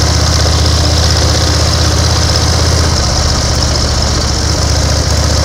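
1930 BSA 770 cc V-twin motorcycle engine running steadily under way, with a piston slap from the old engine.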